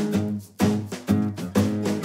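Background music: chords struck in a steady rhythm, about two a second.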